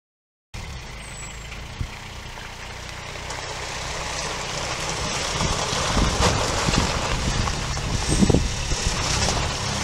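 The Kubota diesel engine of a Glencoe Scot Trak 8x8 UTV running as the vehicle drives closer, growing steadily louder. The sound starts suddenly about half a second in.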